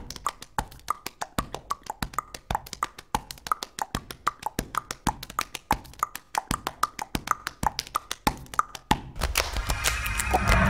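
A rhythmic percussive beat of quick clicks and short pitched pops, about five or six a second. About nine seconds in, a louder, fuller sound with a low rumble takes over.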